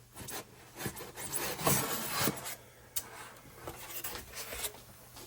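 Packaging in a model tank's box being handled, with a run of rubbing and scraping sounds that are loudest about two seconds in.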